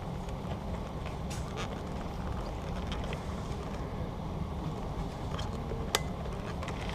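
Handling noise from a used Panasonic camcorder being turned over in the hands: scattered small plastic clicks, with one sharper click near the end, over a steady low rumble.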